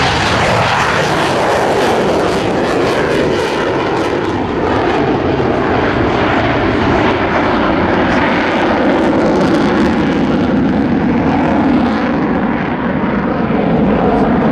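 Royal Netherlands Air Force F-16 fighter jet's turbofan engine running at high power as the jet climbs steeply away. It is a loud, steady rushing jet noise, with a tone that slowly falls in pitch.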